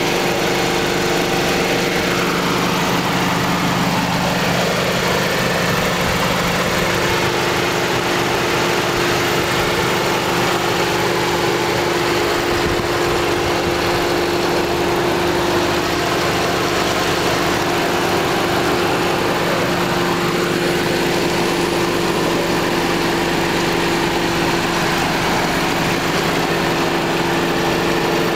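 Mercedes-Benz C-Class 1.8-litre four-cylinder petrol engine idling steadily, heard close up with the bonnet open.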